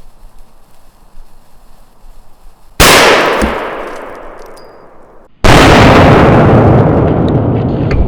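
Firecracker exploding inside an electric meat grinder: two sudden loud bangs about two and a half seconds apart, each fading away in a long rumble, the second louder and longer-lasting.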